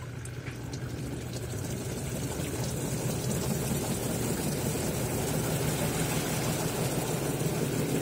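Twin-tub washing machine's spin-dryer motor spinning up with a load of wet bath towels, rising over the first few seconds and then running steadily with a low hum. Behind the hum is a rush of water being thrown out of the towels.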